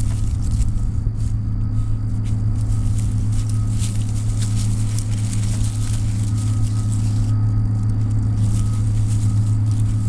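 A loud, steady low hum from a running motor, unchanging in pitch, with a faint higher tone that comes and goes.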